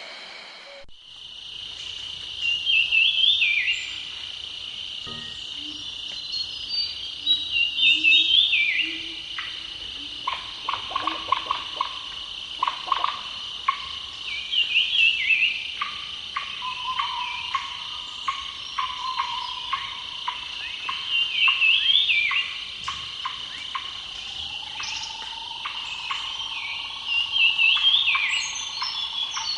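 Crickets and other insects chirring steadily in a dense, high-pitched chorus, with a louder warbling call that rises and falls and repeats about every six seconds.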